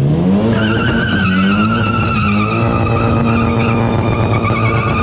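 A car engine revs up in the first half second and is held at high revs while the tyres squeal continuously in a burnout. The squeal wavers slightly and runs on to the end.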